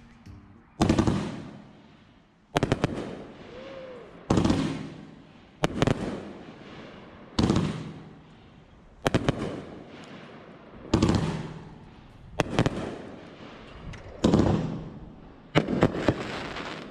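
Consumer fireworks firing in a steady series: about ten loud bangs, one every second and a half or so, each trailing off in a fading rumble and crackle.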